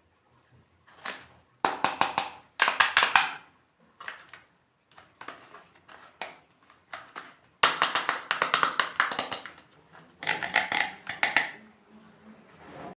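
Plastic toys and packaging being handled: several bursts of rapid clicking and rattling, with quieter scattered taps between them.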